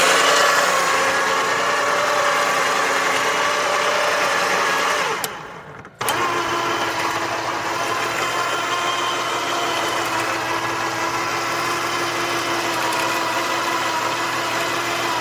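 Electric cable winch hauling a dolly loaded with six 30 kg bags of concrete, about 200 kg in all, up a wooden incline on steel wire rope: a steady motor whine with gear noise. About five seconds in it winds down and stops, then starts again a second later and runs steadily.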